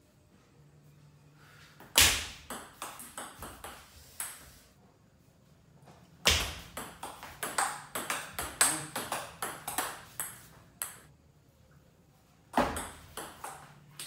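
Table tennis rallies: the celluloid ball clicks sharply back and forth off the rubber paddles and the table, several hits a second. There is a short rally about two seconds in, a longer one from about six to eleven seconds, and another starting near the end.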